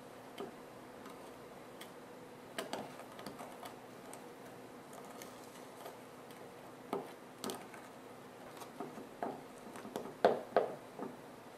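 Irregular light clicks and taps of small objects being handled, sparse at first and coming closer together and louder in the last few seconds, over a faint steady hum.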